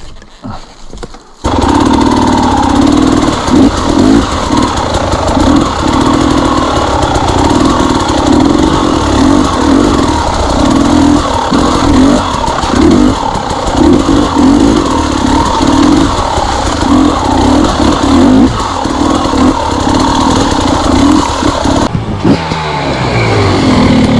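KTM two-stroke enduro motorcycle engine ridden over rough trail, the throttle opened and closed in quick bursts so the engine note keeps swelling and dropping. It comes in abruptly about a second and a half in, and the revs fall away near the end.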